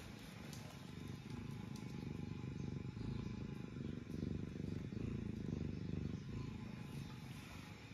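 Domestic cat purring close to the microphone, a steady low rumble that grows louder toward the middle and eases off near the end.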